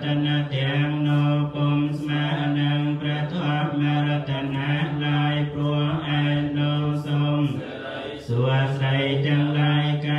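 Buddhist monks chanting in Pali, a steady recitation held on one low pitch, with a brief break for breath about eight seconds in.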